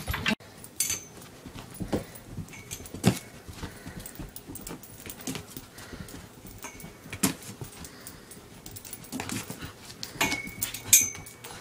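A dog's paws scrabbling and thumping on the floor as it runs in tight circles chasing its own leash: irregular taps and knocks, a few sharper ones, with a brief thin high tone near the end.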